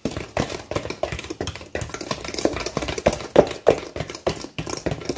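Hand whisk stirring a thick creamed butter-and-sugar cookie batter in a stainless steel bowl, clicking and scraping against the bowl at an uneven pace of about two or three strokes a second.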